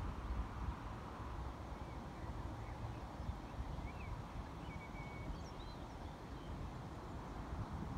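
A steady low rumble with no clear single peak, and a handful of faint, short bird chirps scattered through it.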